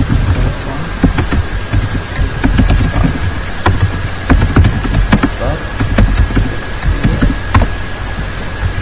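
Computer keyboard typing: irregular sharp key clicks over a loud steady low rumble and a thin steady high whine.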